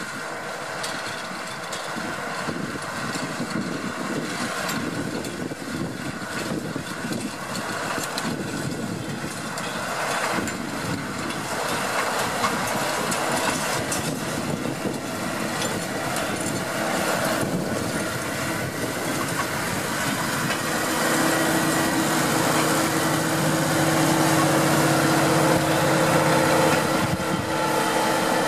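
Deutz-Fahr 6155 tractor running under load while pulling a working power harrow. It grows louder as it comes close, and a steady whine joins the noise in the last third.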